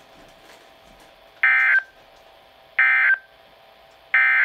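Emergency Alert System end-of-message data signal: three identical short bursts of buzzy digital tone, evenly spaced a little under a second and a half apart, marking the end of the alert.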